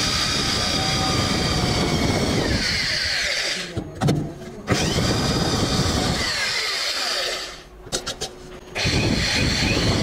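Handheld electric drill boring holes through a PVC end cap, running in three bursts with two short pauses, about four and eight seconds in.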